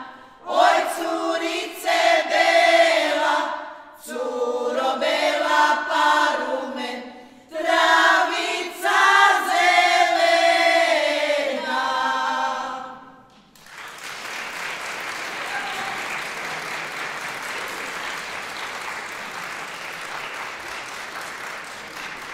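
Women's folk vocal group singing unaccompanied, the closing phrases of a traditional Turopolje folk song, in several phrases broken by short pauses. The singing ends about 13 seconds in and audience applause follows.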